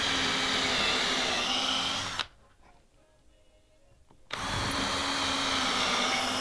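Cordless drill boring pilot holes through cedar planking into a white oak frame. It runs steadily for about two seconds, stops, then starts again about four seconds in for another hole.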